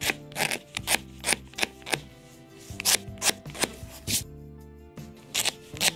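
Razor blade scraping old bellows paper and glue off the wooden top of a cuckoo clock bellows in short, quick, irregular strokes, with brief pauses about two and four seconds in.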